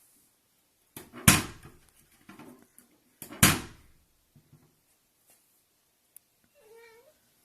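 Two loud bangs about two seconds apart, with scattered small clicks and knocks around them, then a short cat meow near the end.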